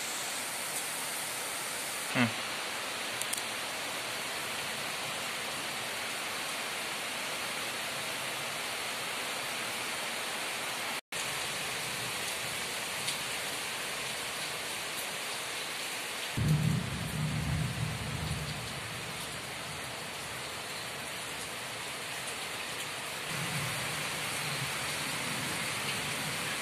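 Steady, even hiss like falling rain, with a brief knock about two seconds in, a momentary gap of silence near the middle, and low bumps from handling later on.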